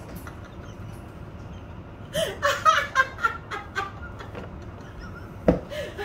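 Garbage truck's diesel engine running with a steady low rumble, with a person laughing and talking for a couple of seconds in the middle and a single sharp knock near the end.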